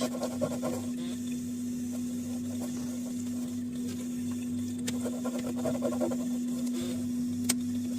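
Deep freezer's compressor running with a steady hum, with a couple of sharp clicks in the second half.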